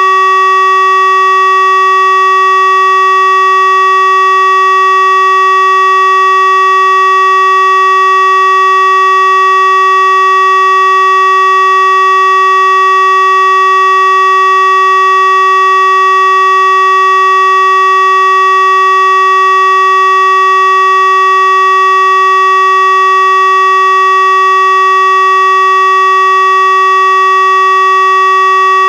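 Tesla UEAJ electronic warning siren sounding a steady continuous tone, the Czech siren-test signal (Zkouška sirén). Loud, one unwavering pitch with many overtones, no rise or fall.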